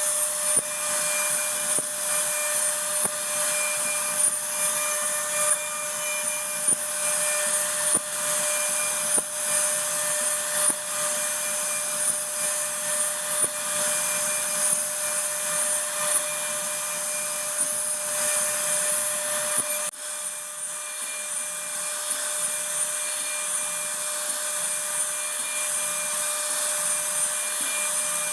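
CNC router spindle running and cutting into wood: a steady whine over a rough, noisy cutting sound, with occasional sharp clicks. The sound dips briefly about twenty seconds in, then carries on.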